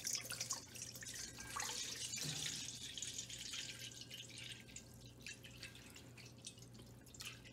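Water poured from a plastic gallon jug into a stainless steel mixing bowl, the stream splashing steadily onto the metal bottom, louder at first and easing off later as the bowl fills.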